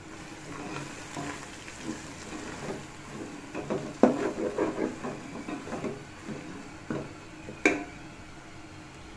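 Wooden spatula stirring and scraping fried onions, ginger-garlic paste and fresh herbs around a metal pot, over a light sizzle of frying oil. Two sharp knocks against the pot, one about four seconds in and one near the end.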